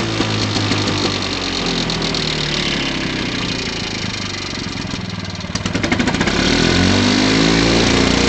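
Victa Mustang 160 cc two-stroke lawn mower engine running just after an easy pull-start. It sags about halfway through, then picks up speed, rising in pitch to a louder, faster run.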